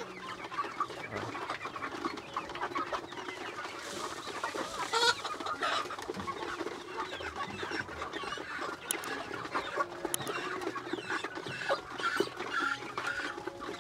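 A flock of young Rhode Island Red and Dominant CZ chickens clucking continually as they feed, with many short overlapping calls.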